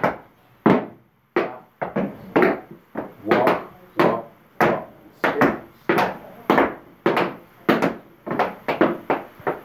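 Tap shoes striking the floor as two dancers practise steps together: a run of sharp taps, about two a second, in a fairly even rhythm.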